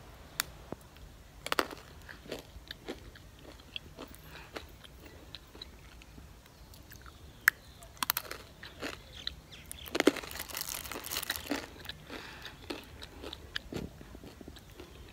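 Close-up crunching and chewing of a chocolate-coated biscuit stick (Snaxels Choc Stix), with scattered crisp cracks and a few louder ones as bites are snapped off, about a second and a half in, around eight seconds, and around ten to eleven seconds.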